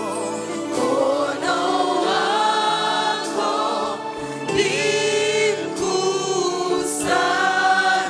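Women's praise team singing a gospel worship song in harmony through microphones, with long held notes.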